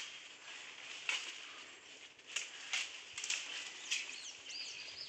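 Goat tearing and chewing jackfruit leaves: about five sharp, crisp snaps of leaves pulled from the bunch, over a steady high hiss. Short chirping glides come in near the end.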